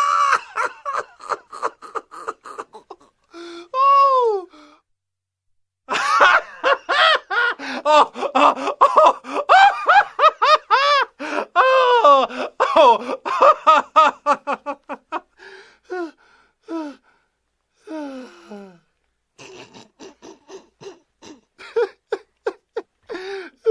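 People laughing in repeated bursts of quick pitched pulses, the longest run from about six to fifteen seconds in.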